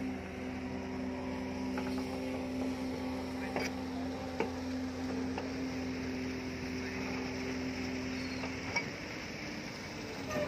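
Hitachi hydraulic excavator running steadily while its bucket digs and lifts soil, with a couple of sharp metallic clinks from the bucket and its linkage a few seconds in. The engine note changes near the end.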